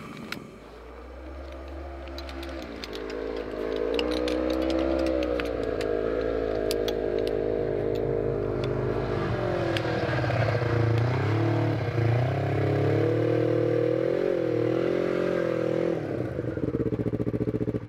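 Snowmobile engine running, getting louder a few seconds in and rising and falling in pitch as it is throttled. In the first half come light clicks and clatter from the aluminium poles of a folding camp chair.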